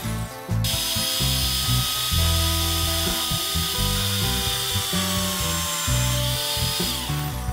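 Drill press running, its twist bit boring through a plywood block with a steady grinding hiss. There is a short break just after the start.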